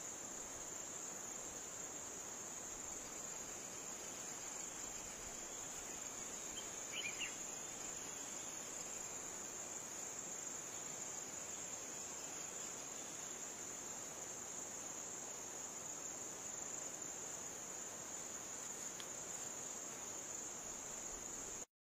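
Steady high-pitched insect chorus over a background hiss, with one short chirp about seven seconds in; it cuts off suddenly near the end.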